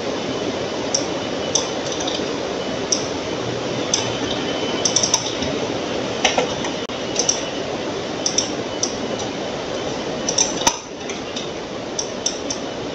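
Computer mouse clicking irregularly, a short sharp click every second or so, over a steady background hiss.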